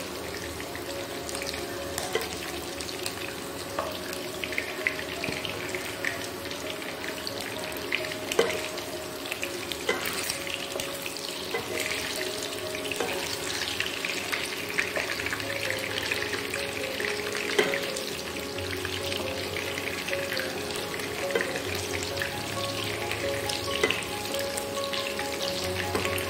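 Battered chicken pakoras frying in oil in a non-stick wok: a steady sizzle and crackle, with a few scrapes and taps as the pieces are turned with a spatula.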